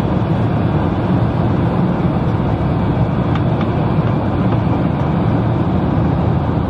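Steady roar of airliner cabin noise: engine and airflow noise heard inside the passenger cabin.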